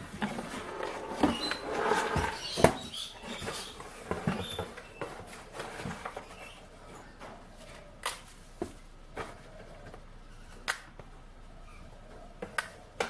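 Rustling and handling noise, then a few sharp clicks and clinks spread over the rest, as small die grinder burrs and their packaging are rummaged through and picked up.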